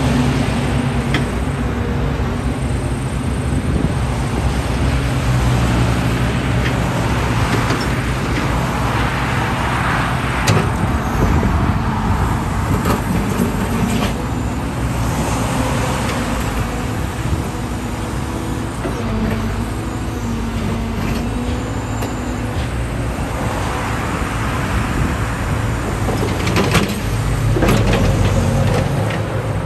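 Caterpillar 311D excavator's diesel engine running, its pitch shifting up and down now and then, with a few sharp knocks.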